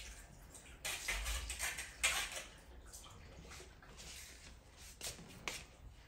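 Water splashing and dripping in short irregular bursts as the dishwasher's removable filter is rinsed, loudest between about one and two and a half seconds in.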